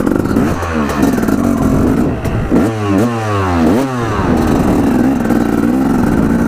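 Dirt bike engine running and being revved, with several quick rises in pitch about halfway through.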